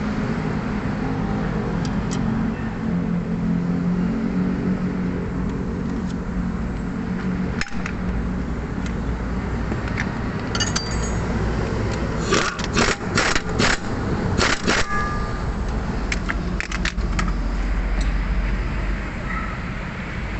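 Sharp metallic clinks and rattles of hand tools and metal parts, with a quick run of loud clicks about two-thirds of the way in, over a steady low rumble of traffic.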